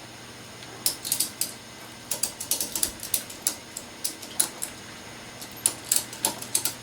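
A hand ratchet clicking in short, irregular runs of sharp clicks, starting about a second in.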